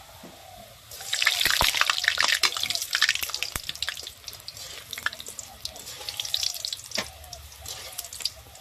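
Urad dal fritters frying in hot oil in a wok: a crackling sizzle that starts suddenly about a second in, loudest for the next two seconds, then easing to a softer crackle. Sharp clicks of a wire skimmer against the wok as the fritters are stirred.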